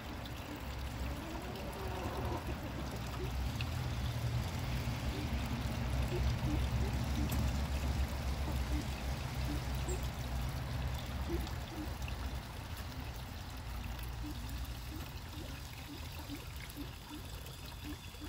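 Running water trickling steadily into a pond, a little louder in the middle.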